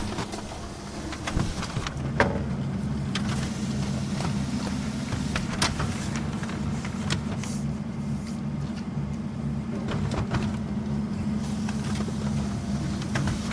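Office printer running as it prints: a steady motor hum with sharp mechanical clicks every second or so as paper is fed through.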